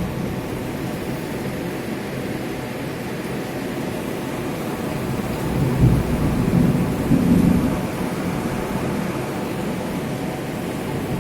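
Wind-driven rain falling in a steady hiss, with a louder low rumble of a second or two about six seconds in.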